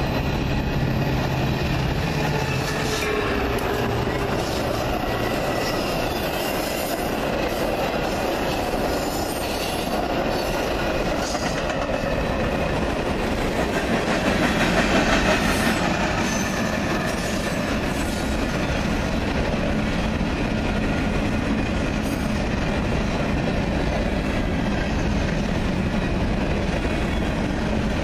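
Freight train of tank cars and covered hoppers rolling past close by, the wheels clattering on the rails with a thin wheel squeal. The noise is steady and grows loudest about halfway through.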